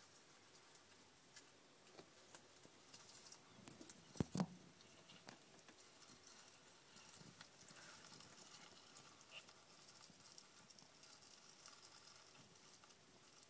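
Near silence, broken by faint rustles and light clicks, with two sharp knocks close together about four seconds in: handling noise as the plastic cricket container and camera are moved.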